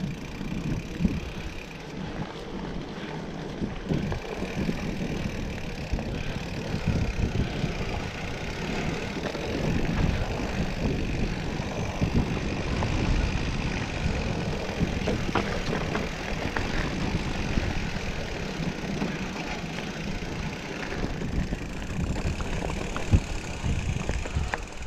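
Bicycle rolling along a trail: a steady rumble of tyres and wind on the microphone, with scattered clicks and rattles from the bike.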